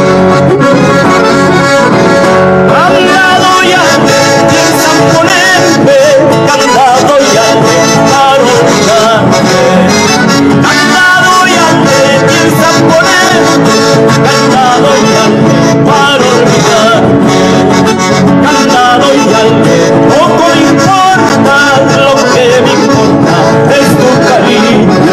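Music with a steady beat and long held melody notes.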